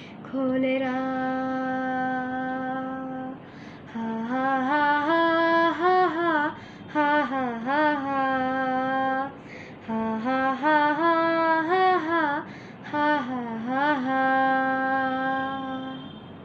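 A boy singing a Nepali song unaccompanied, without words: three long, steady held notes with wavering, ornamented phrases between them. The voice stops near the end.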